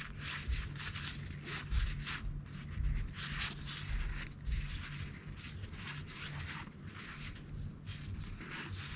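Unsleeved game cards sliding against one another as they are thumbed one at a time from one hand to the other, a soft rub or flick about every half second at an uneven pace.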